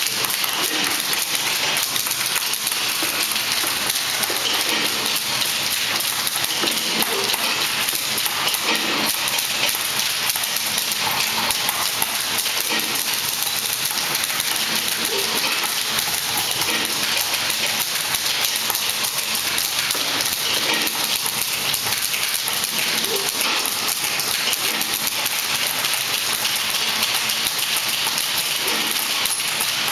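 Many typewriters typing at once: a dense, unbroken clatter of keystrokes at a steady level.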